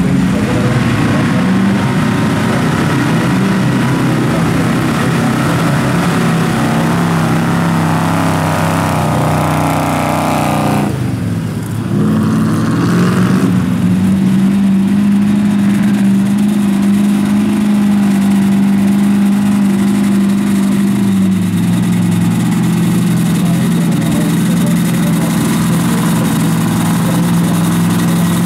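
Heavy off-road truck engines working hard in deep mud, revving and wavering. After an abrupt break about 11 seconds in, a single steady engine note follows, dropping slightly in pitch about two-thirds of the way through.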